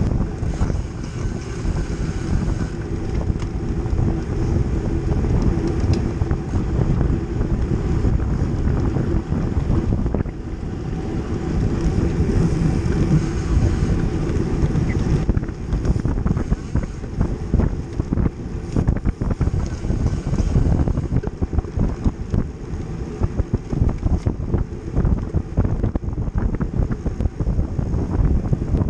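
Wind buffeting the microphone of a camera mounted on a racing bicycle moving at pack speed: a steady, rumbling rush with rapid flutter.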